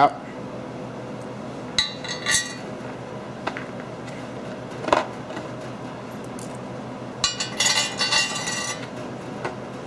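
Small steel hardware (bolts, washers and nuts) clinking against each other and against a steel caster-mounting bracket as it is handled and fitted. There are a few sharp clinks in the first half, then a longer jingle of small metal parts near the end.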